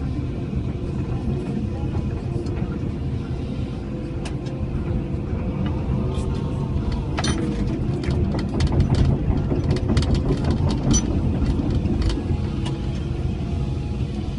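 Cat 312E L excavator's diesel engine running steadily under load, heard from inside the cab, as its mowing bucket works the stream bank. From about six to eleven seconds in there is a spell of sharp clicks and rattles over the engine.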